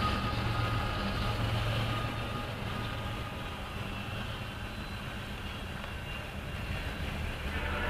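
Norfolk Southern freight train passing in rain, its diesel locomotives giving a steady low rumble over rail and wheel noise. The sound eases slightly in the middle and builds again near the end.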